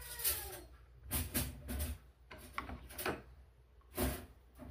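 A few scattered light knocks and clicks of kitchen things being handled around a plastic mixing bowl, with a short falling sound right at the start.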